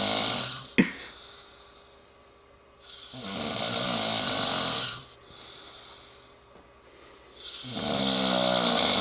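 A man in heavy sleep, passed out after a few beers, snoring loudly. A long snore comes about every four seconds, the later ones rattling, with a brief click about a second in.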